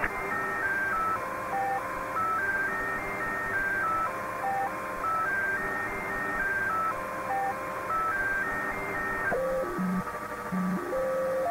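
Shortwave radio receiver tuned near 19.999 MHz, playing pure electronic tones that step up and down in pitch several times a second over steady static hiss. About nine seconds in, the tones change to a lower, slower pattern. The uploader takes this for a Spooky2 remote transmission.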